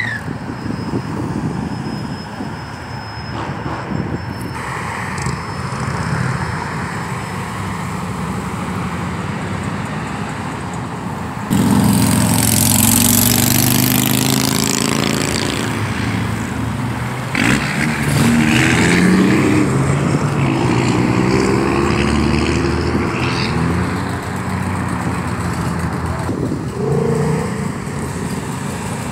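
Cars driving past on a busy street, engines running under load. About twelve seconds in the sound suddenly gets louder, and engine pitch rises again and again as cars accelerate past.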